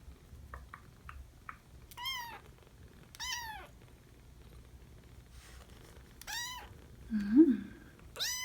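Kitten of four to five weeks mewing: four short, high-pitched mews, each rising then falling in pitch, about two, three, six and eight seconds in. A brief, louder, low voice sound comes about seven seconds in.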